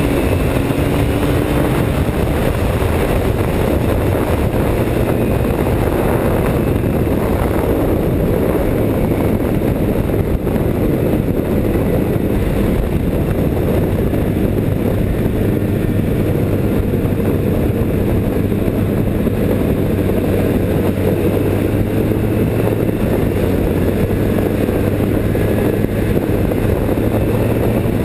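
Snowmobile engine running at speed with a steady drone, under a constant rush of noise.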